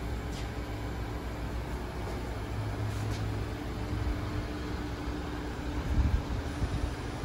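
Steady hum and hiss of a powder-coating booth while a powder spray gun coats radiator shutters, with a few low thumps about six seconds in.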